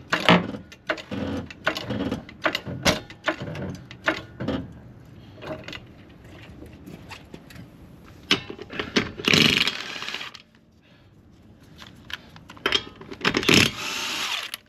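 Hydraulic floor jack being pumped to lift a car, a series of short metal clanks and creaks from the handle strokes. Near the end, a cordless impact wrench runs in short bursts on the lug nuts.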